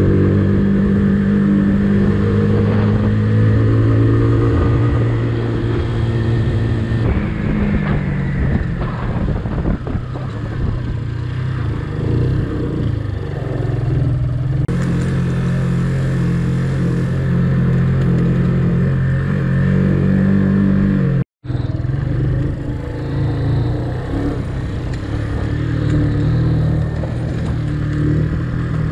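Motorcycle engine running while being ridden, its pitch shifting with the throttle and dropping around eight seconds in. The sound cuts out for a moment about twenty-one seconds in, then the engine carries on.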